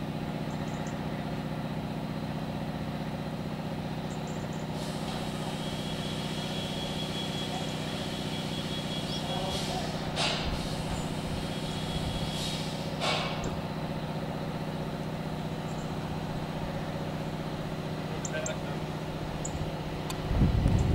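A steady low engine hum, like a vehicle idling, with several seconds of hissing in the middle and a short low rumble near the end.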